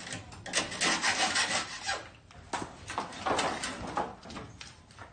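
Rough scraping and grating against concrete and concrete block, in a run of strokes through the first two seconds and a few more around the middle.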